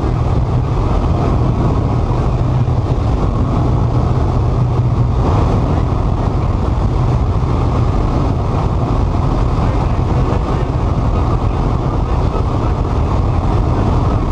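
Steady engine and airflow noise inside a light aircraft's cockpit in flight, with a brief louder rush about five seconds in.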